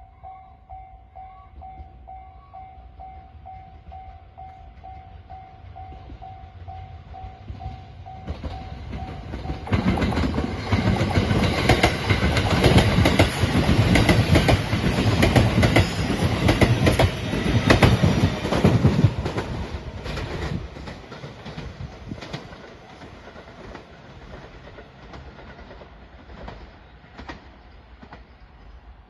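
Level-crossing warning bell ringing with a steady pulsing tone. About ten seconds in, a train passes loudly for roughly ten seconds, then moves off with wheel clacks over the rail joints as it fades.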